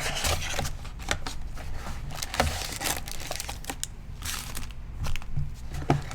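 Plastic wrapping on a trading card box crinkling and tearing as it is opened, with scattered small clicks and rustles.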